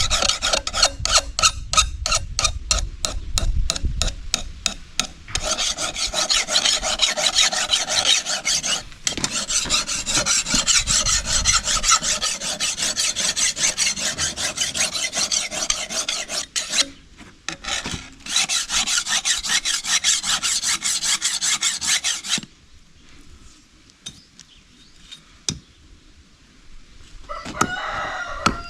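Steel machete blade being sharpened: quick, rhythmic rasping strokes at first, then long runs of steady scraping with short breaks, stopping a few seconds before the end. A rooster crows near the end.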